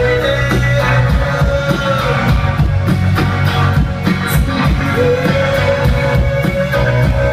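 Live rock band playing loudly: guitar, bass and drum kit, with a long held note over the steady beat.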